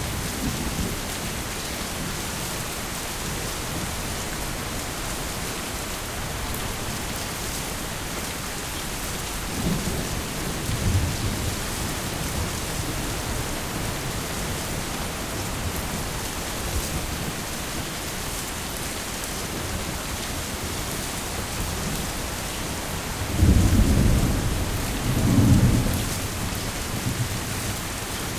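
Heavy rain falling steadily, with thunder rumbling: a low roll about ten seconds in and a louder, longer double rumble near the end.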